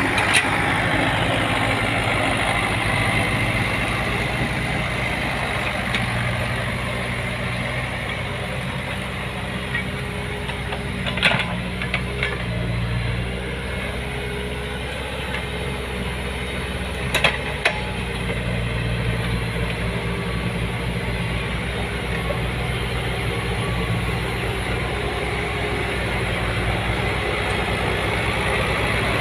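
Diesel engine of heavy road-construction machinery running steadily, with two short sharp knocks partway through.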